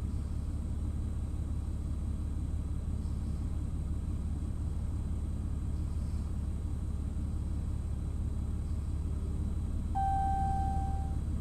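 Steady low rumble, with one clear, even beep lasting about a second near the end.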